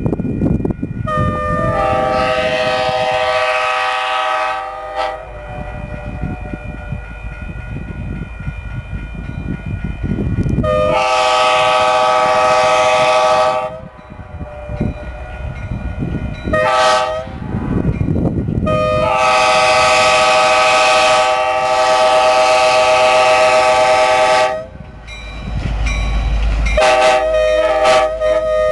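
EMD F40PH diesel locomotive's air horn sounding the grade-crossing signal: long, long, short, long, then another blast starting near the end. The locomotive's diesel engine rumbles louder underneath as it draws close.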